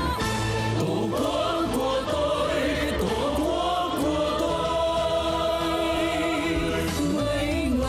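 Music: several voices singing together over instrumental accompaniment, with long held notes in the second half.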